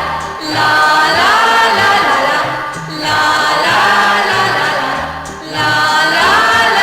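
A vocal group sings a wordless refrain over band accompaniment, in short repeated phrases that each open with an upward slide.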